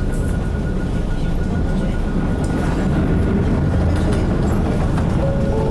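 Isuzu KC-LV one-step city bus running along a city street, heard from inside the cabin: a steady low engine and road rumble with a faint steady whine above it.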